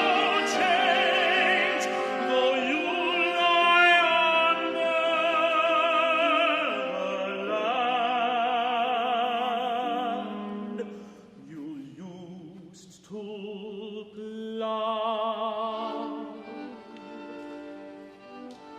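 Tenor singing loudly with wide vibrato over piano and string quartet, dropping to a much softer passage about eleven seconds in, where the voice and strings continue quietly.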